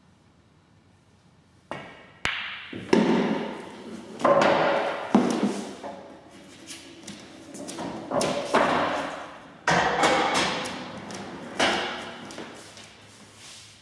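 A sharp click, then a run of loud knocks and thuds at the pool table, each ringing out and dying away over about a second.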